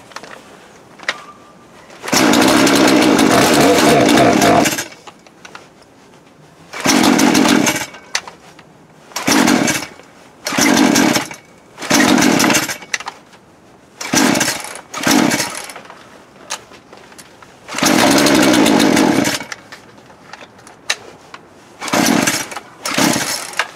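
A Poulan Pro PP4218A 42cc two-stroke chainsaw being pull-started again and again in the cold. It catches and runs for about three seconds, then dies. It fires only in short sputters of under a second on the following pulls, runs for about a second and a half once more, and sputters twice near the end.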